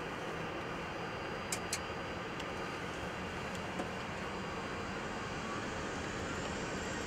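Steady cockpit noise of an Airbus A340-300 at the start of its takeoff roll, its four CFM56 engines spooling up. Two sharp clicks come about a second and a half in, and a faint whine rises near the end.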